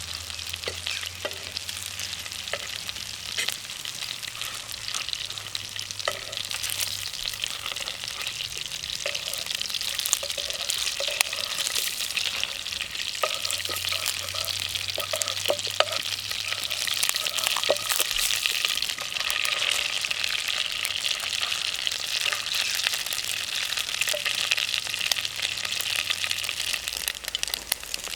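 Campfire burning, with a steady hiss and many small crackles and pops throughout.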